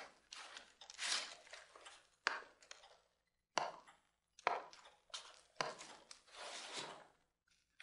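Sheets of paper rustling and being shuffled in short, irregular bouts, with a few sharper taps as papers are leafed through and put down on a desk.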